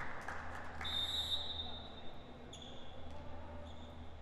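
A referee's whistle blown once, about a second in: a short, steady high note. Faint hall noise and a steady low hum run underneath, with a couple of fainter short high tones later.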